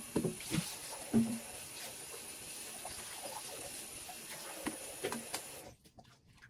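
Items being handled and set down on a countertop: a few light knocks and clinks over a steady hiss, most of them in the first second and a cluster near the end, before the sound cuts off suddenly.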